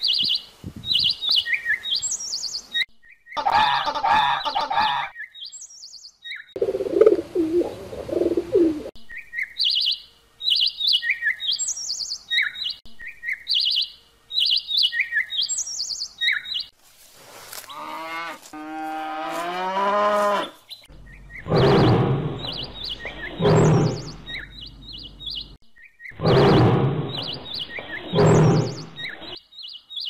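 A string of different animal calls cut one after another: quick series of high bird chirps through the first half, a wavering pitched call in the middle, then loud, low calls repeated several times near the end.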